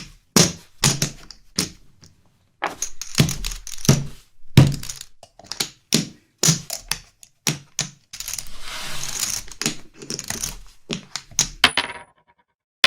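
A run of sharp clacks, each with a dull thud under it, coming irregularly about once or twice a second, like hard pieces set down on a table. A few seconds of continuous rattling come about eight seconds in, before the clacks resume.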